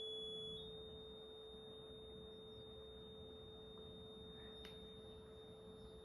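Two faint, steady electronic sine-wave tones, one low and one high, the oscilloscope signals that draw the sine-and-cosine circle and the emerging patterns. The high tone steps up slightly in pitch about half a second in and then holds.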